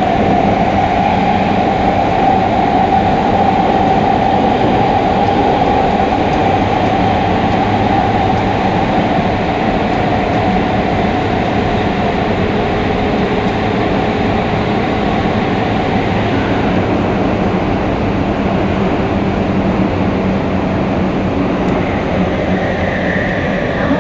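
A Yokohama Minatomirai Y500-series train running through a subway tunnel, heard from inside the car by the gangway. There is a loud, steady rumble of wheels and running gear, with a steady tone in it that sinks slightly over the first half. Some higher tones come in near the end.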